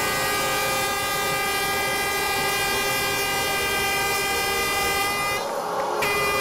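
A loud, steady sustained tone sounding several pitches at once, over a noisy background; it breaks off briefly about five and a half seconds in and then resumes.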